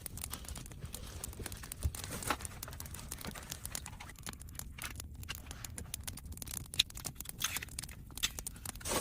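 Quick, irregular light clicks and taps of hand work, with a faint rustle under them.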